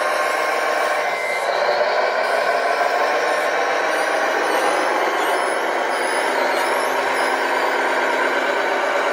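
Steady, thin truck running noise from a radio-controlled Tamiya Globe Liner 6x6 truck model driving slowly, with no deep bass.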